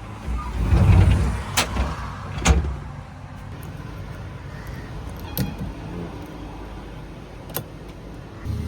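JCB 3DX backhoe loader's diesel engine running, louder about a second in and again near the end. Two sharp knocks come in the first few seconds, and a couple of lighter clicks come later.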